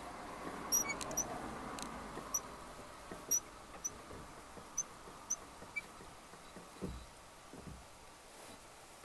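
Honda N-VAN clutch pedal squeaking: a string of short, high chirps spaced irregularly about half a second to a second apart, with a few soft thumps. The squeak is the fault being shown.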